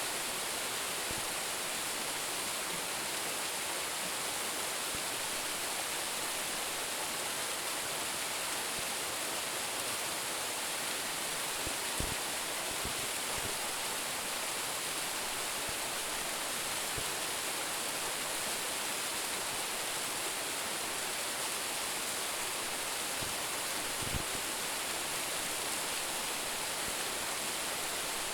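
Roumon Falls, a waterfall with a drop of about 10 metres, pouring steadily: an unbroken hiss of falling water. Two faint low knocks come through, about halfway and near the end.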